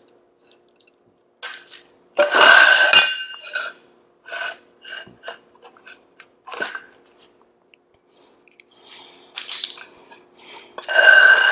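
Metal garage door opener rail sections sliding, scraping and clanking against each other as they are pulled apart and laid on a concrete floor. There is a loud ringing scrape about two seconds in and another near the end, with short clinks between. A faint steady hum runs underneath.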